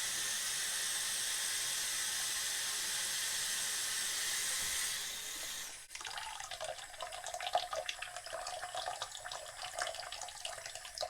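Water running from a tap into a sink or basin: a steady rush for about six seconds, then, after a short break, a more uneven trickling and splashing as the water fills up.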